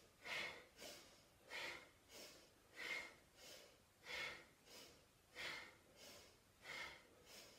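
A woman pumping her breath in short, forceful puffs, about one every half-second or so, alternating stronger and weaker, in time with side-to-side twists of her upper body.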